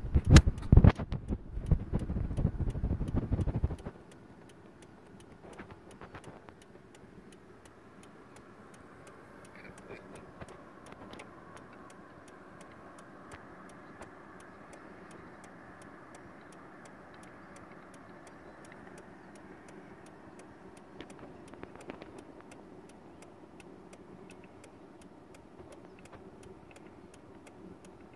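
A loud low rumble that cuts off sharply about four seconds in. It is followed by a long quiet stretch with scattered faint clicks from a displaying male western capercaillie.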